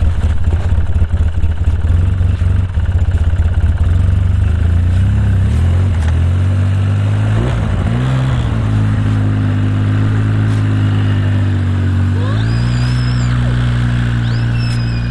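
Polaris Sportsman ATV engine running, uneven at first, then changing speed and settling into a steady idle, with a step in pitch near the end. It has just been got going after sitting buried in snow on a weak battery.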